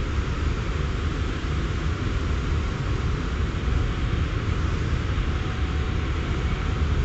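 Steady low rumble and hiss of a NSW V-set intercity electric train running along the line.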